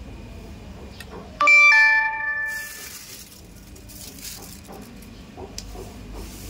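A two-note ding-dong chime, a higher tone followed by a lower one, sounds about a second and a half in and rings away over about a second.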